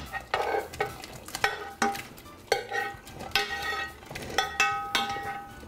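A spoon scraping and knocking against a skillet as butter-sautéed shrimp are tipped into a stockpot. It makes a string of irregular scrapes and clanks, several of which ring briefly.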